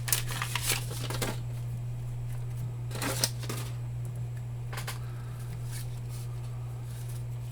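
Baseball trading cards being flicked and slid through by hand: a few short papery rustles and flicks, clustered at the start, about three seconds in and around five seconds in, over a steady low hum.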